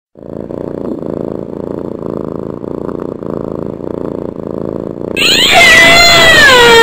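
A cat purring in a steady, low, pulsing rhythm. About five seconds in, a much louder, long, high cry begins, its pitch falling and wavering.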